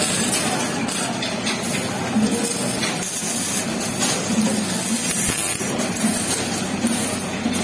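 MIG welding arc crackling steadily with irregular sharp pops, over a low buzz.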